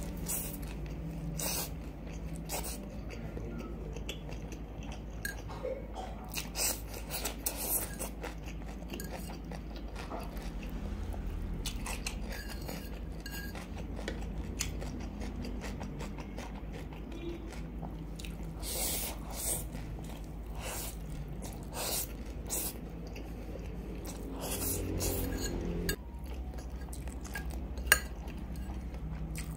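Eating sounds: chewing and biting on instant noodles in black bean sauce and a fried egg, with irregular wet mouth clicks and a fork scraping on a ceramic plate. There is one sharp clink near the end, over a steady low hum.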